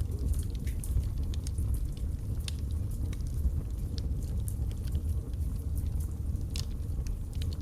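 Wood fire burning in a fireplace: a steady low rumble of the flames with irregular sharp crackles and pops from the burning logs, a couple of louder pops near the end.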